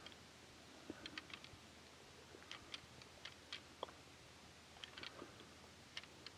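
Faint, irregular clicking and clacking of two whitetail bucks' antlers as they fight, heard from afar, some clicks coming in quick clusters over a low steady hiss.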